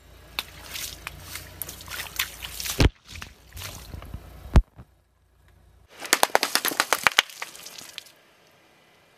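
A car tyre rolling over water-filled rubber gloves, squelching and bursting them with two sharp pops and splashing water. After a short gap, a tyre crushes plastic packets of coloured contents with a rapid crackling crunch.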